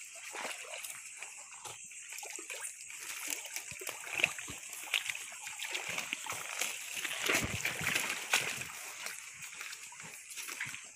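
Footsteps wading through a shallow, rocky stream in slippers, with water splashing and sloshing around the feet in an irregular run of steps. The splashing is busiest a little past the middle.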